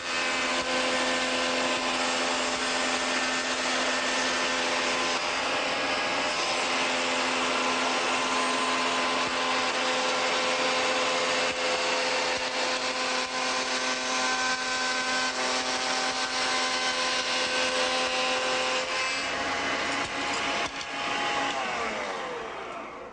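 Shopsmith Mark V running as a shaper with a reciprocal (stile-and-rail) cutter set, cutting the profile on the end of a wooden stile with a steady motor tone. Near the end the motor is switched off and winds down with a falling pitch.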